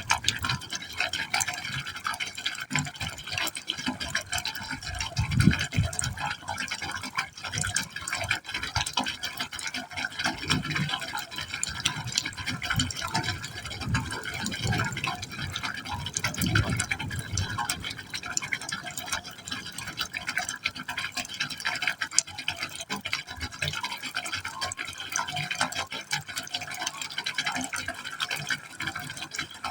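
Water falling steadily into a pipe hole, splashing and gurgling, with deeper hollow gulps from the pipe now and then.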